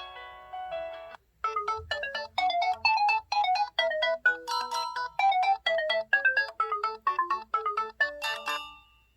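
LG X2 (K30) stock ringtones. One tune's held notes end about a second in, and after a short gap a brisk new melody of quick, bright notes plays, then stops near the end.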